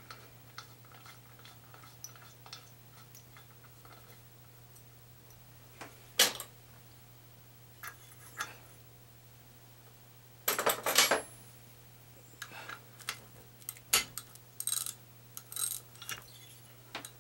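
Spark plug being fitted into a small engine's cylinder head with a spark plug socket and ratchet: scattered light metal clicks and taps, a dense burst of metal clinking about ten seconds in, then spaced ratchet clicks near the end.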